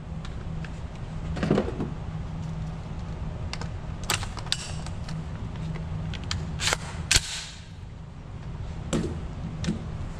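Aero Precision EPC-9 9mm pistol-caliber carbine being handled and readied, with its Magpul bipod: a scattering of sharp metallic clicks and clacks, the loudest about seven seconds in, over a steady low hum.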